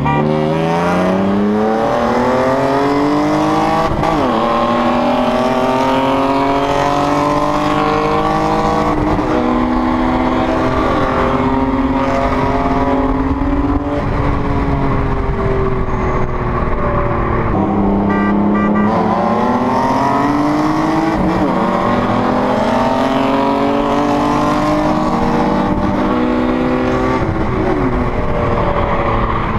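BMW E36 M3 straight-six engine under full throttle, heard inside the cabin through its aftermarket intake and X-pipe exhaust. Its pitch climbs steadily, drops about 18 seconds in, then climbs again.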